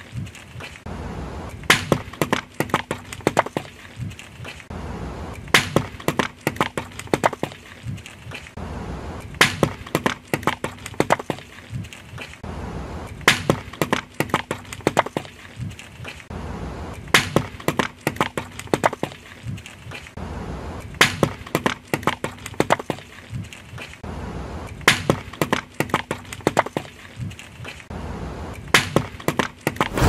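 A car tyre rolling over and crushing toothpaste tubes: a clatter of sharp cracks and snaps over a low steady hum. The same few-second crushing sequence repeats about every four seconds.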